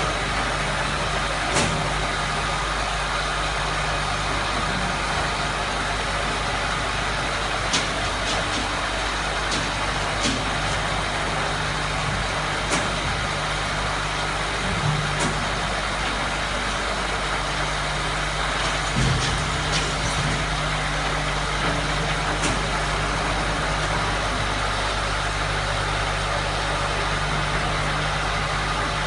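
Oil palm fruit thresher running with a steady mechanical drone, broken by scattered short knocks every few seconds.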